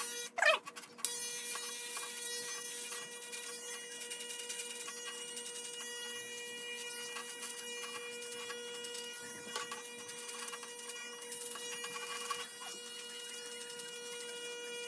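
Corded electric hair clippers buzzing steadily as they shave a short haircut, with a light crackle of hair being cut. Near the start there are two brief loud sounds that slide in pitch.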